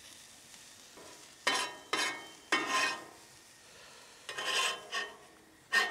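Thin-sliced onion rings dropped a few at a time onto a very hot griddle, each drop hissing in a short sizzle that dies away, five in all.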